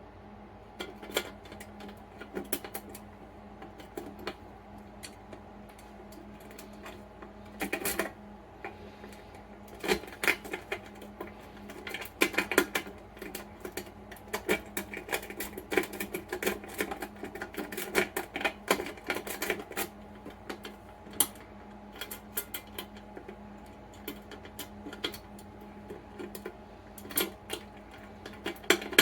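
Metal lock pick raking inside the wafer lock of a book safe: irregular light metallic clicks and rattles in quick flurries, thickest in the middle, over a steady low hum.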